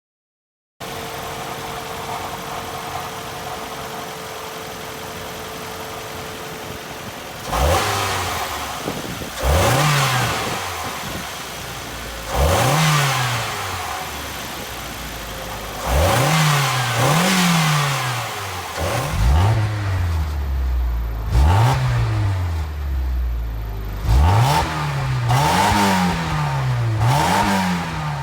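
A car engine idling steadily, then revved in about ten short blips, each one rising quickly and falling back to idle.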